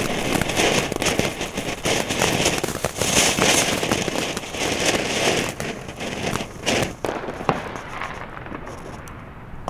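Nico 1001 Silbertaler ground fountain firework burning: a steady hiss of spraying sparks, thick with crackling. It dies down over the last couple of seconds as the fountain burns out.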